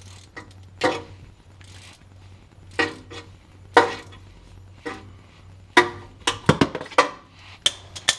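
Metal parts and hand tools clinking and knocking as a car's gear shifter is worked loose: sharp separate clinks with a short ring, coming faster in the last couple of seconds.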